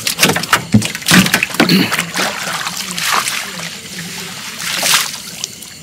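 Water splashing and sloshing at a small boat, in irregular splashes that ease off near the end.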